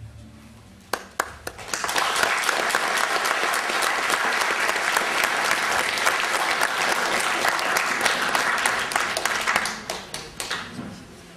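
Audience applauding: a few scattered claps at first, then dense, steady applause that dies away near the end.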